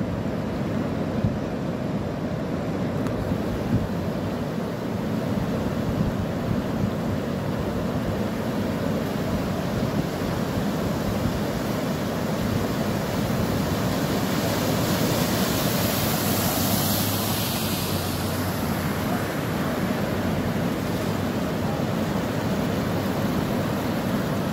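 Floodwater rushing across a road in a steady roar, with wind buffeting the microphone. The hiss swells for a few seconds in the middle, where a vehicle wades through the water.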